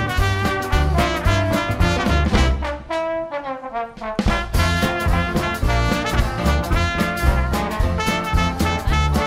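Background swing-style music with brass and a steady beat. About three seconds in, the bass and beat drop out for roughly a second, leaving only the higher parts, then return.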